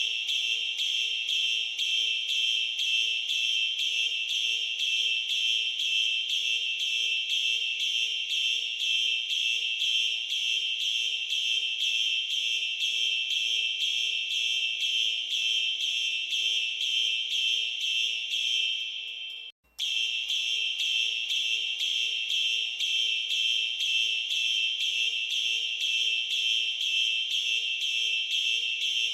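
Fire alarm sounding in march time, a high-pitched electronic tone pulsing on and off in a fast, even rhythm. It cuts out for a moment about twenty seconds in, then resumes.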